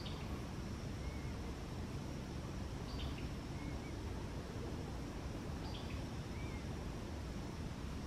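Quiet woodland ambience: a steady low rumble, with a faint short high call repeating about every three seconds and fainter warbled calls in between.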